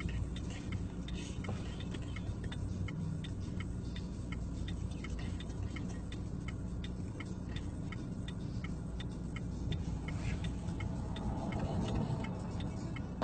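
A car's indicator flasher ticking evenly, about three ticks a second, over the low rumble of the idling engine, heard from inside the cabin.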